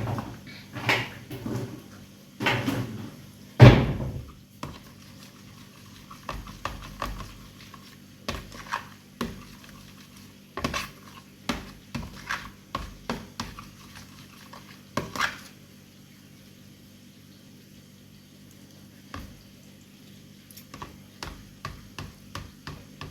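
Kitchen utensils and dishes clinking and knocking while a sauce is mixed, with one heavy knock about four seconds in. A quieter pause comes about two-thirds of the way through, then lighter clinks again.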